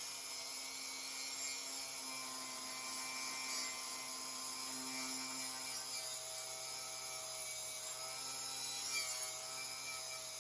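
A small electric power tool running steadily, its pitch shifting slightly a couple of times.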